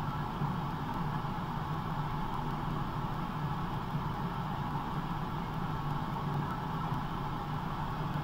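Steady hiss with a low hum from the blank end of a VHS tape playing on after the programme, unchanging throughout.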